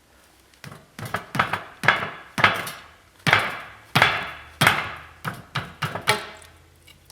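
About a dozen sharp, ringing knocks, irregular but roughly two a second, as a seal-pulling tool is struck to work the old axle seal out of the end of a GM 12-bolt rear axle housing.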